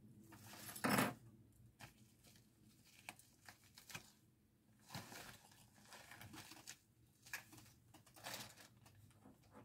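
Plastic packaging crinkling and rustling as it is handled and opened, in scattered short bursts with small clicks; the loudest rustle comes about a second in.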